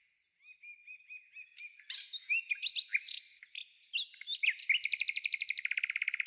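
Songbirds singing: short whistled and chirping notes from several birds, then near the end a fast, even trill of rapidly repeated notes.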